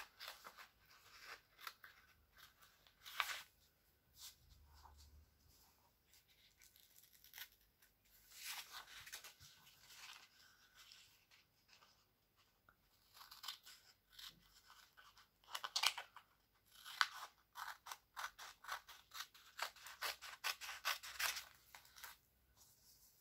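Scissors snipping through paper, in several runs of quick short cuts with pauses between.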